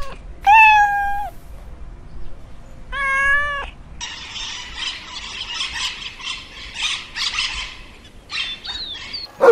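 A cat meows twice, a loud meow about half a second in and another about three seconds in. After that comes a steady high chattering of budgerigars with short chirps.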